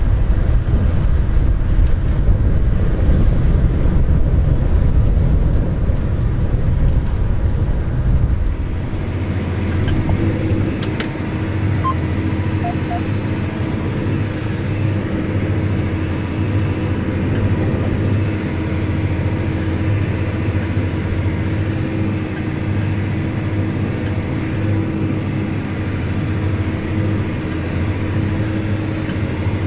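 A heavy low rumble with wind on the microphone. About nine seconds in it changes to a steady machine engine hum with a low, pulsing throb.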